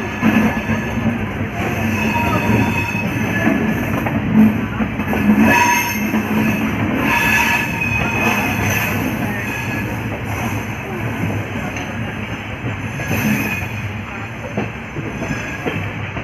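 Passenger train moving off, heard from inside the coach: steady rumble of the wheels on the rails, with short wheel squeals about five and seven seconds in.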